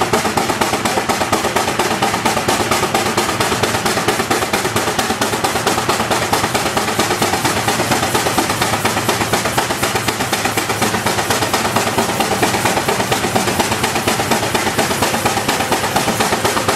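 Steam traction engine running on the belt, its exhaust beating in a rapid, even rhythm.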